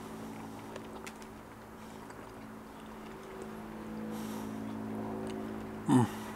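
A person quietly chewing a spoonful of food, with faint clicks over a steady low hum. Near the end comes a short hummed 'mmm' of appreciation.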